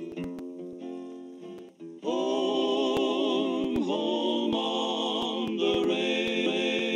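Outro theme music: sustained chords that become fuller and louder about two seconds in, with scattered faint clicks.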